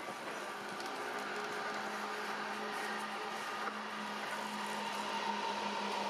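A steady low engine hum that comes in about a second in and slowly grows louder over a general background noise.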